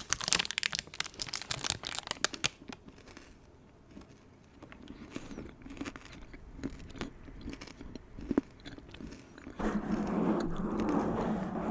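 Close-miked biting and chewing of a chilled peanut–dark chocolate protein bar: sharp crunches over the first couple of seconds, then softer, scattered chewing. Near the end a steadier, louder noise joins in.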